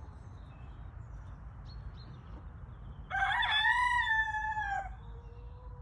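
Rooster crowing once, a single cock-a-doodle-doo starting about three seconds in and lasting under two seconds, wavering at the start, then held and sagging slightly at the end.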